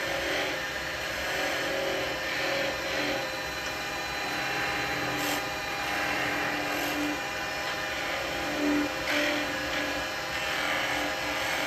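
Wood lathe running steadily with a hum of several fixed tones, and a turning tool cutting the spinning bowl in a few short passes.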